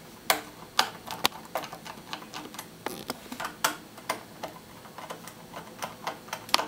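Screwdriver turning out a screw from the plastic handle and back cover of an electric dry iron: irregular sharp clicks and ticks, several a second.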